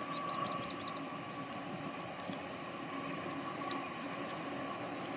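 Steady high-pitched drone of a cicada chorus, with a quick run of short high chirps in the first second.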